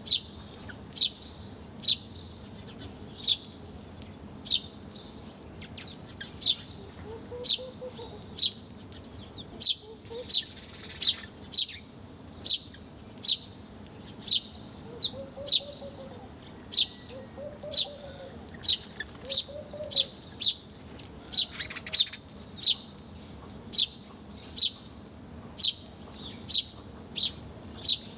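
Bird chirping: short, sharp, high chirps repeated about once a second at irregular spacing. A few faint, low calls sound in the background.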